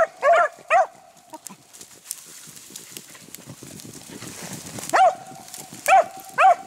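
Beagles barking in short, pitched yelps: three quick barks at the start and three more near the end, with a quieter stretch of rustling in between.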